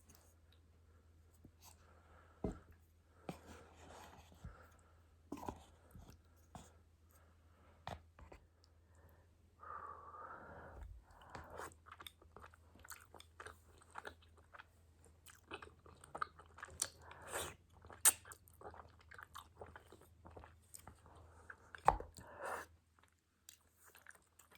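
Close-miked chewing and biting of a spicy tteokbokki meal: wet, irregular mouth clicks and smacks, with a few sharper louder ones about 18 and 22 seconds in, over a faint steady low hum.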